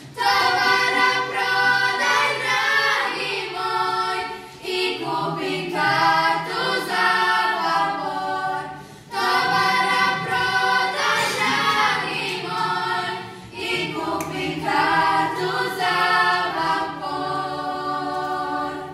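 A female klapa of young girls singing a Dalmatian song in several parts. The singing comes in long phrases broken by short pauses for breath about every four to five seconds.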